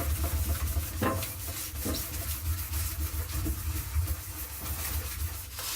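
Acetone-soaked rag scrubbing ink stains off the inside of a clothes dryer's metal drum, in quick irregular rubbing strokes over a low steady hum.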